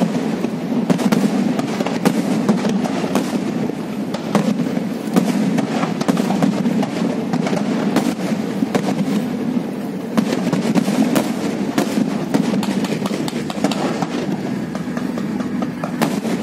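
Fireworks display over the sea: shells bursting in a rapid string of sharp bangs and crackles, many close together, over a steady low background noise.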